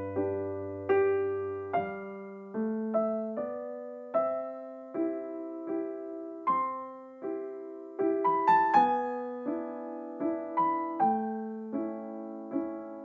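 Background music: a slow, gentle electric piano melody, single notes struck about once or twice a second over held low notes.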